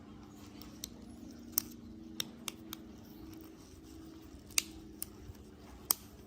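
Irregular sharp clicks and snaps, about eight of them, of small hand tools on small parts during repair work, over a steady low hum.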